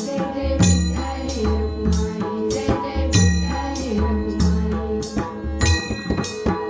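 Marathi bhajan music: a hand drum with deep bass strokes and small cymbals keep a steady beat, about two strokes a second, under held melodic tones.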